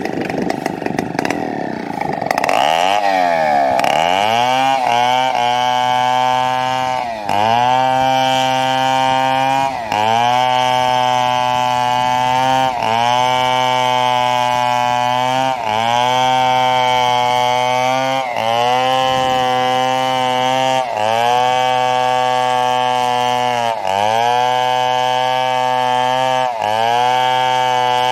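Two-stroke chainsaw running at high speed as it saws a fallen coconut palm trunk. The pitch swoops up and down about two seconds in, then holds steady with a brief dip roughly every three seconds.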